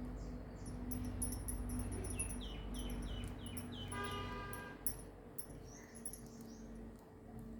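A small bird chirping: a quick run of about five short falling chirps, then a brief higher pitched call about four seconds in, over a low steady hum.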